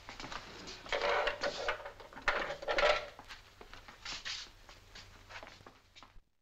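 Steel-barred jail cell door being opened: metallic scraping and clanks, twice, with a dull held ring in the metal, amid scattered footsteps and clicks on a hard floor. The sound cuts off suddenly near the end.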